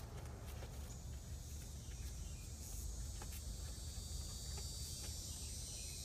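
Faint steady high-pitched buzzing of insects, swelling a little midway, over a low rumble, with a few faint ticks.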